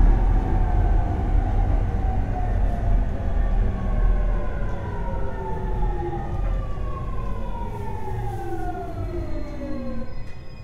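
JR East 209 series 500 subseries train's Mitsubishi GTO-VVVF inverter whining in several tones that fall steadily in pitch as the train slows under braking, over a steady low rumble of the running gear, heard inside a motor car. The whine cuts off about ten seconds in.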